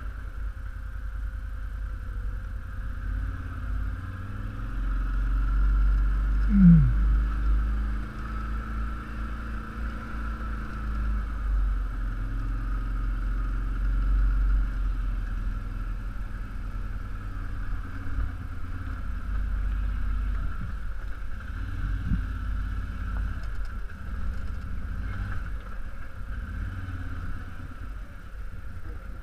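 An ATV engine running steadily as it rides a rocky trail, with a low rumble throughout. About six and a half seconds in comes a brief, loud downward-sliding tone, the loudest moment.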